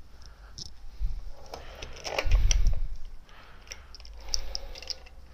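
Small metallic clicks and rattles as a chainsaw's guide bar and chain are fitted by hand. About two seconds in there is a loud, low rustle of clothing brushing against the microphone.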